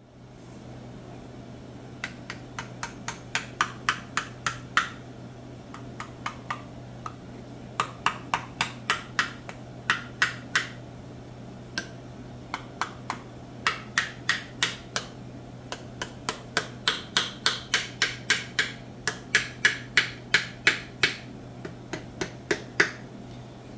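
A hammer tapping a wooden wedge into the kerf of a hickory axe handle to lock the axe head on. The sharp knocks come in quick runs of about two or three a second, with short pauses between runs.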